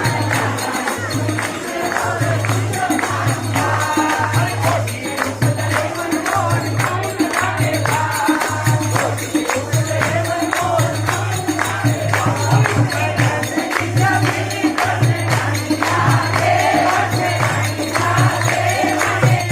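Devotional song with singing over a steady drum beat and jingling, tambourine-like percussion.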